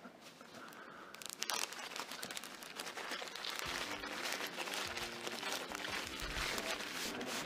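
Gift wrapping crinkling and rustling as a small present is unwrapped by hand, starting about a second and a half in. Soft background music comes in about halfway through.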